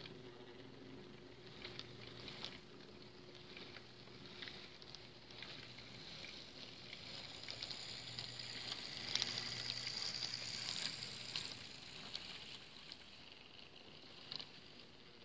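HO-scale model train rolling past on sectional track: plastic wheels clicking and chattering over the rail joints over a low electric motor hum, louder around the middle as the cars pass close.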